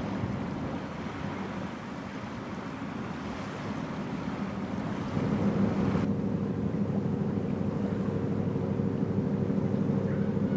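A rushing wash of wind and water, which about five seconds in gives way to the steady low drone of a pilot launch's engine as the boat speeds past.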